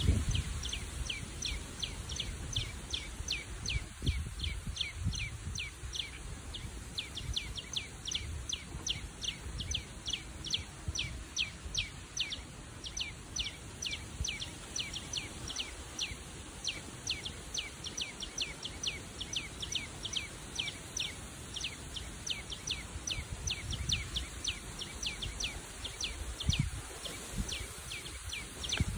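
A small bird calling a sharp, high chip over and over at an even pace, about three calls a second, without a break.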